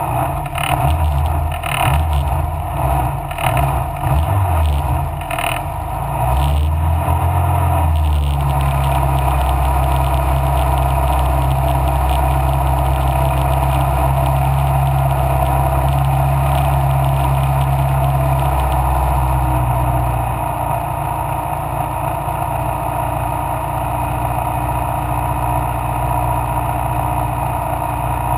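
Mallock Mk8B racing car engine running hard, its note uneven and broken up for the first eight seconds or so, then held steady, easing a little about twenty seconds in.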